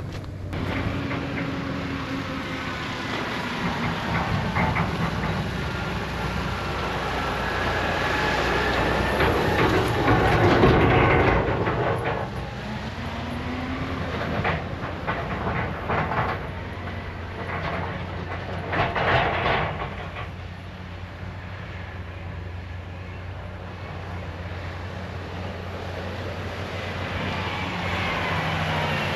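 Heavy machinery running with a steady engine drone that rises and falls in pitch, mixed with clanks and knocks, loudest about ten seconds in.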